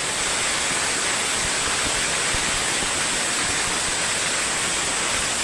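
Steady rush of storm water, with no pauses and no separate events.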